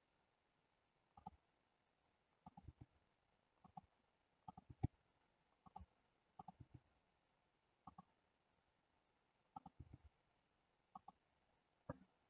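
Faint computer mouse button clicks over near silence, scattered and irregular, often in quick pairs or threes, with one louder click about five seconds in.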